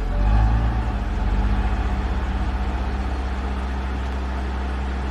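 Car engine running steadily at low revs as a small car drives off.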